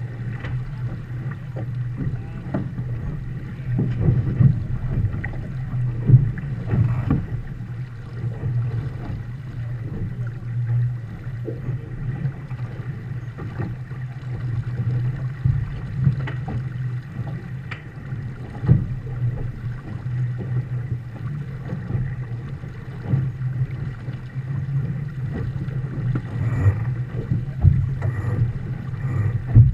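Water rushing along and slapping against the hull of a Viper sailboat under sail, mixed with wind on the microphone: a steady low rush broken by frequent knocks of waves against the hull.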